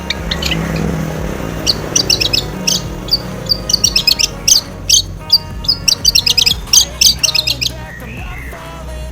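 Long-tailed shrike (cendet) singing a fast run of sharp, high chirps that starts about two seconds in and stops near the end, over background music.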